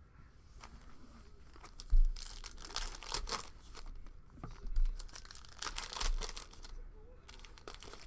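Plastic wrapping on a sports-card hobby box or its packs being torn open and crinkled by hand, in irregular bursts. There is a sharp handling knock about two seconds in and lighter bumps later.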